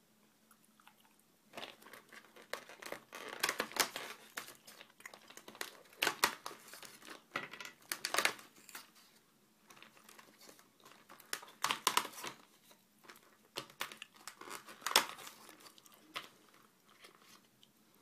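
Crinkling and crunching handling noise in irregular bursts, with several louder clusters of rustling and clicks.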